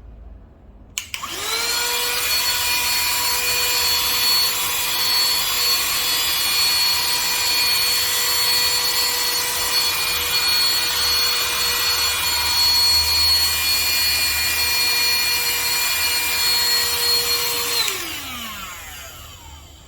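10000 Pa portable handheld vacuum cleaner switched on with a click about a second in. Its motor spins up to a steady high whine over a loud rush of air and runs for about sixteen seconds, then is switched off and winds down with a falling whine.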